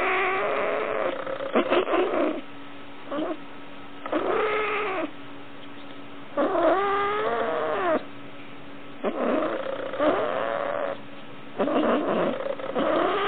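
Domestic cat giving a series of about six long, moaning cries while being stroked on the belly, each rising and then falling in pitch, with short pauses between them.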